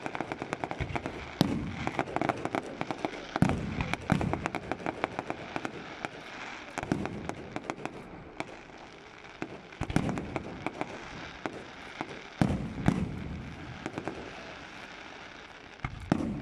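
Aerial fireworks shells bursting overhead, deep booms every few seconds amid rapid crackling from glittering stars. The crackling is dense for the first few seconds, then thins out.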